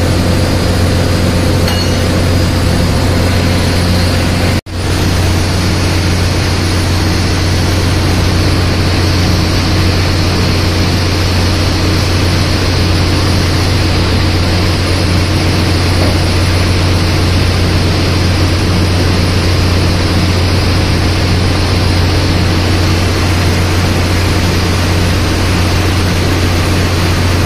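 Loud, steady drone of a cargo ship's running engine-room machinery, a deep even hum with a few steady tones above it. It drops out for an instant about four and a half seconds in.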